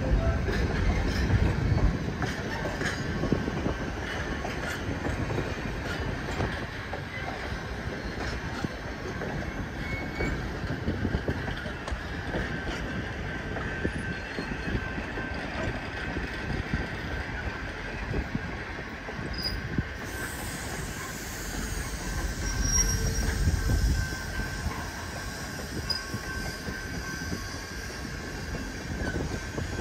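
Standard-gauge passenger coaches rolling slowly past, their steel wheels giving a steady high squeal over a low rumble, with light clicking from the rail joints.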